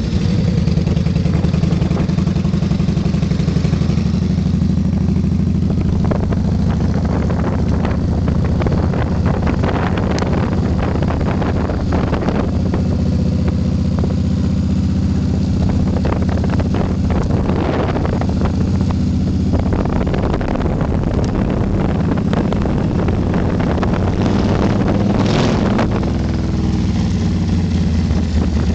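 Yamaha Road Star 1600's air-cooled V-twin running steadily through Vance & Hines exhaust pipes while riding along, with patches of wind rush over the microphone now and then.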